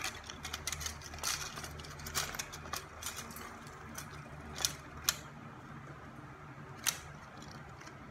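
Light plastic clicks and rattles as a torn Mercedes-Benz 722.6 transmission conductor plate is handled and turned over, with three sharper clicks in the second half, over a faint steady low hum.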